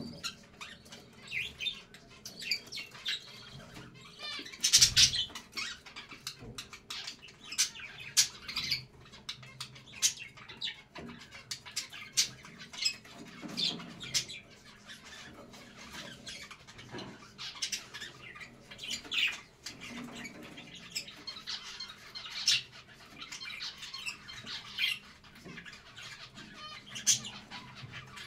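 Budgerigars chattering: a steady stream of short, high chirps and squawks, with a louder burst about five seconds in.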